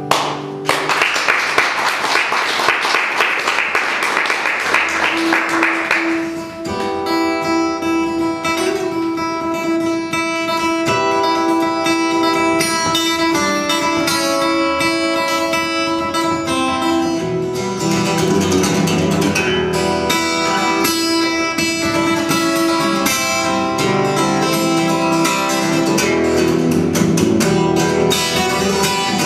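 Instrumental introduction to a song, led by acoustic guitar. For about the first six seconds there is a dense, busy passage. After that come picked notes over a long held low note.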